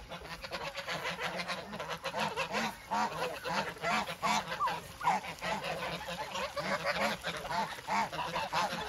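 Flock of domestic geese honking, a continuous run of many short overlapping calls.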